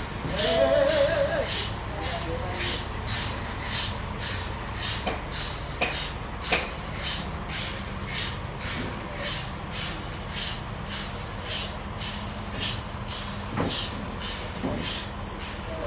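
Bandsaw sawmill running: a steady low machine hum with an even, pulsing high hiss that repeats about three times every two seconds, and a few faint clicks.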